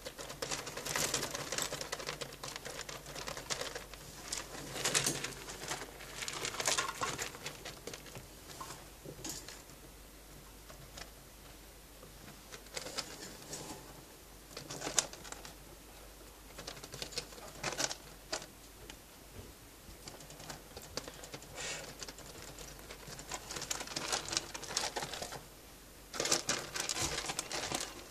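Rats scrabbling and digging about in paper cage bedding: irregular bursts of rustling and crackling with quieter stretches between.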